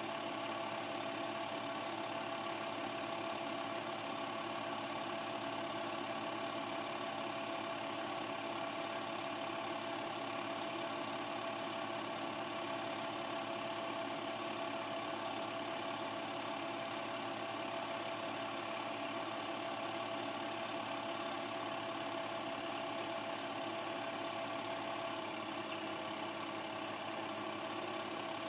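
Film projector running steadily, the even mechanical whirr of its motor and film transport.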